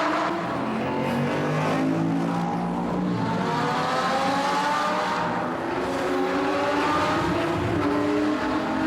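Sports car engines accelerating hard through the gears inside a road tunnel: the engine note climbs, drops at each gear change every two to three seconds, and climbs again.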